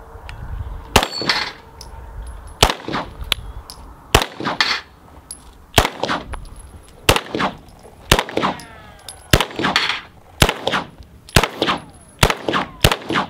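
Walther P99 semi-automatic pistol fired in a steady string of about twenty shots, roughly one to two a second. Most shots are followed a moment later by a fainter crack or clang from the steel targets.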